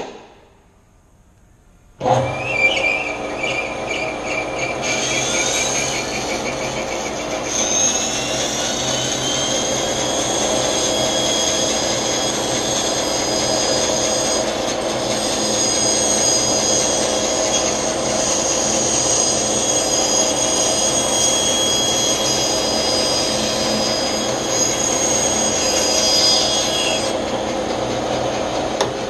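Bandsaw switched on about two seconds in, then its blade cutting a curve through a wooden board, a loud steady whine over the motor's hum. The high cutting whine stops near the end while the saw keeps running.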